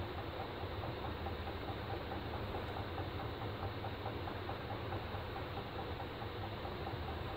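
Steady mechanical hum and noise of a running motor or machine, unchanging throughout, with a faint fast regular ticking in it.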